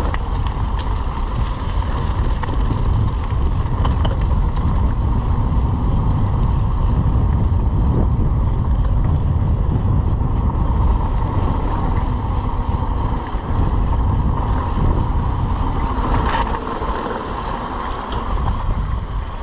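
Wind rushing over the action camera's microphone and mountain-bike tyres rumbling over concrete and dry leaves on a descent, a steady rushing noise with scattered small clicks and knocks from the bike.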